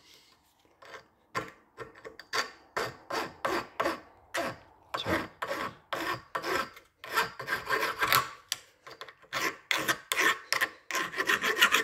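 Hand file rasping across the cut end of a 6 mm bolt in short back-and-forth strokes, putting a starter bevel on it and taking off the burrs left by the angle grinder. The strokes start about a second in and come quicker and closer together near the end.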